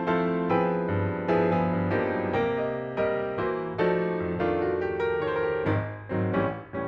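Piano background music: a gentle melody of single struck notes and chords, each ringing and fading before the next.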